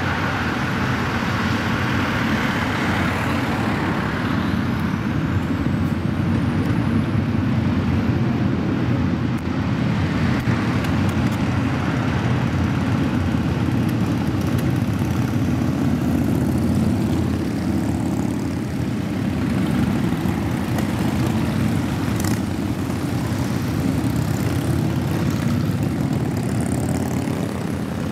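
A large group of motorcycles, mostly cruisers and touring bikes, riding past at low speed: a steady, dense rumble of many engines at once.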